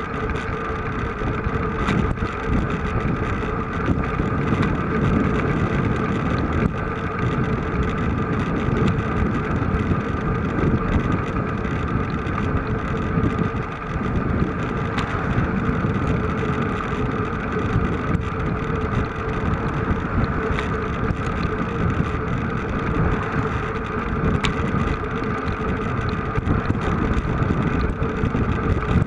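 A motor vehicle's engine running steadily with a constant drone, under heavy wind rumble on the microphone.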